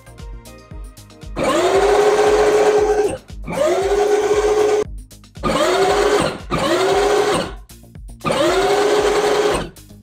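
Power Wheels ride-on car's electric drive motor and gearbox, a 12 V system run on a 20 V drill battery, whining in five bursts of one to two seconds. Each burst rises in pitch as the motor spins up, then holds steady until it cuts off.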